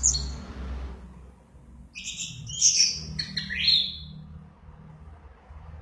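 Orange-headed thrush singing: a brief high call at the start, then a run of loud chirping phrases with quick falling whistles between about two and four seconds in. A steady low hum runs underneath.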